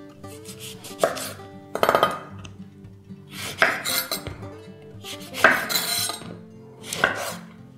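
Kitchen knife cutting through lemons and striking a wooden cutting board, about five separate strokes spaced a second or two apart.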